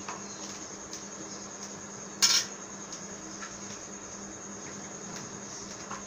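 A brief metallic clatter about two seconds in, of tools being handled on a glass-topped workbench. Behind it is a steady high-pitched drone of crickets.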